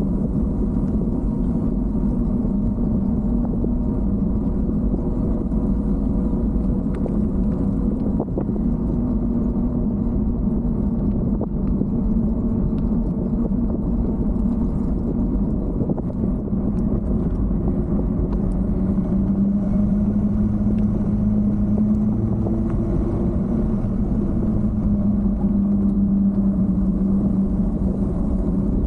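Steady low rumble of riding noise, wind and road, from a bike moving along a paved street. A humming tone runs over it and drops slightly in pitch about two-thirds of the way through.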